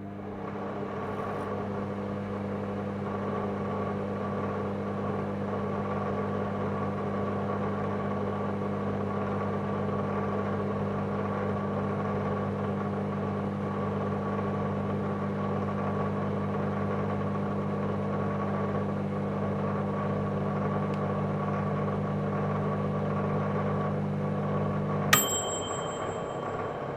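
Microwave oven running with a steady electrical hum. About 25 seconds in it cuts off with a click and a single bell-like ding that marks the end of the cooking cycle.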